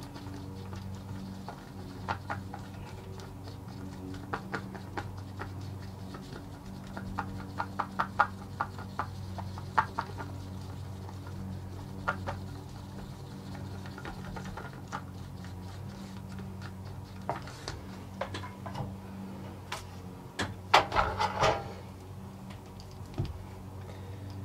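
Two-part epoxy being stirred in a small cup: irregular light clicks and scrapes of the stirrer against the cup, with a brief flurry near the end. A steady low hum runs underneath.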